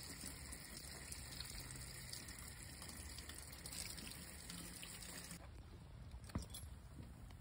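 Tap water running into and through a boiler's plate heat exchanger and splashing into a drain, faint and steady; the plate is still partly blocked with sludge, so the water comes through slowly. The running water stops about five seconds in, and a single light knock follows.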